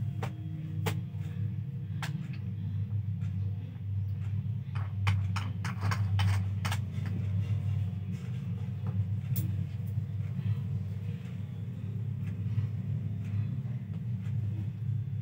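Plastic-covered dumbbell weight plates and a red collar clicking and knocking as they are handled, with a quick run of clicks about five seconds in and another click about nine seconds in. A steady low hum runs underneath.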